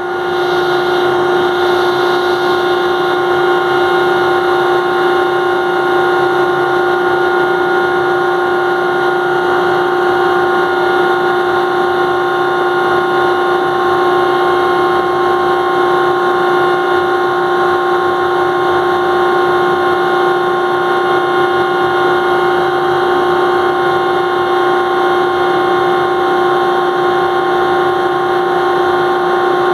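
Ship's deck crane switched on, sounding a loud, steady tone at one unchanging pitch.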